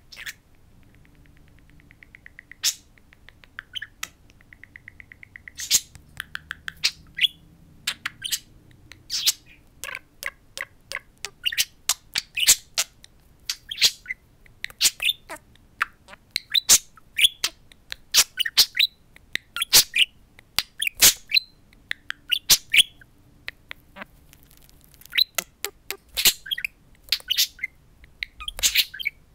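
Budgerigar chirping and chattering at its reflection in a mirror: a long run of short, sharp chirps and clicks, with a fast buzzy trill in the first few seconds.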